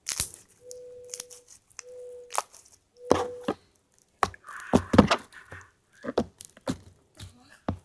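Homemade slime being squeezed and popped, giving irregular sharp cracks and knocks. A short steady tone sounds three times in the first three and a half seconds, with a brief hiss about five seconds in.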